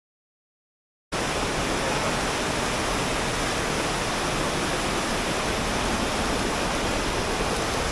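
Silence, then about a second in a steady, even rushing noise starts abruptly and holds without change.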